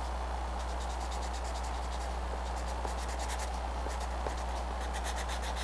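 Colored pencil scratching on paper in many quick, short shading strokes, over a steady low hum.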